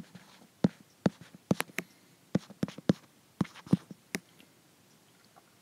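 A dozen or so sharp taps at irregular spacing from handwriting on an iPad touchscreen, stopping about four seconds in.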